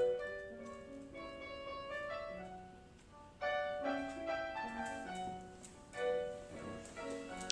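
Background piano music: a slow melody of single notes and chords, with fuller chords struck about three and a half and six seconds in.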